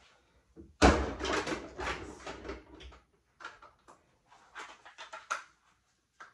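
Kitchen drawers and cupboards being rummaged: a loud clatter of items for about two seconds, then several lighter knocks and clicks.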